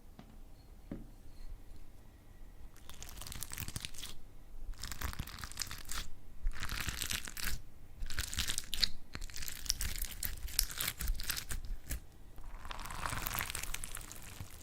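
Slime being squeezed and worked by hand, crackling and crunching in about six separate bursts of a second or two each.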